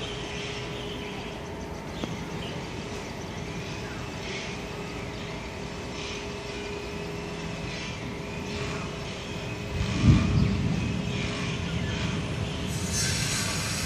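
Steady outdoor city rumble of distant traffic or an engine, with a faint steady hum and faint high chirping over it. A sudden low thump comes about ten seconds in, and a brighter hiss comes in near the end.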